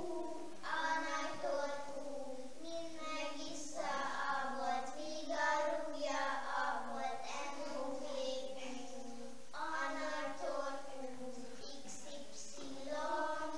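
Young children singing a song together, in phrases of a few seconds with short pauses between them.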